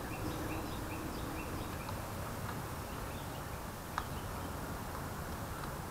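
Faint, quick high chirps from a small bird, about three a second, over a steady low background for the first couple of seconds, then a single sharp click about four seconds in.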